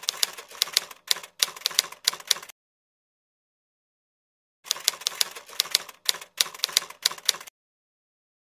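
Typewriter keystrokes, a sound effect matching on-screen text being typed out. Two runs of rapid key clicks, each about three seconds long, are separated by a silent gap of about two seconds.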